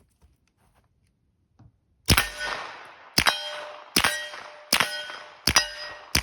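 A 9mm Uzi firing five single shots, about one a second, starting about two seconds in. Each shot is followed by a ringing metallic clang. The gun is cycling reloaded set-back ammunition without a failure to feed.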